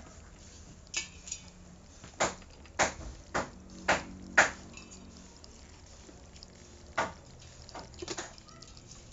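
Live crabs moving about in a plastic basin: irregular sharp clicks and knocks of their shells and legs against the plastic and each other, a cluster of them in the first half and a few more near the end.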